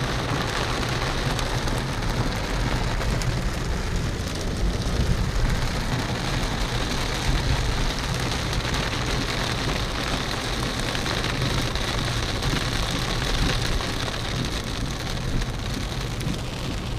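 Heavy rain on a car's roof and windscreen, heard from inside the moving car, over a steady low rumble of engine and tyres on the wet road.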